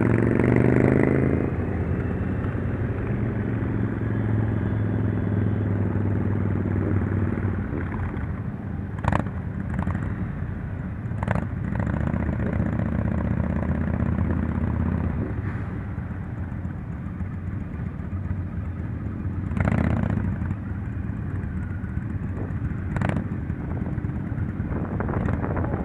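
Motorcycle engine running on the move, revving up over the first second or so and then running steadily. Several sharp clicks or knocks cut through it along the way.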